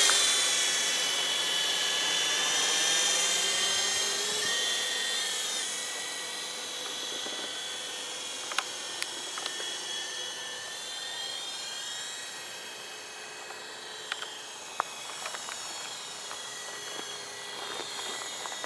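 Small battery-powered gyroscopic RC toy helicopter in flight. Its electric motor and rotors make a high-pitched whine that is loudest at first and fades as it flies away, with the pitch wavering about four seconds in.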